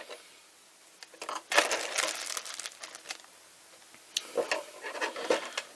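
Handling noise from a handheld ham radio being unboxed: a second of plastic crinkling about a second and a half in, then a few light clicks and taps near the end.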